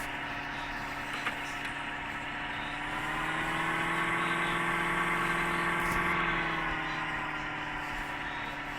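Porsche's engine running at low revs while the car is manoeuvred slowly; about three seconds in the revs rise a little and hold, then settle back toward idle near the end.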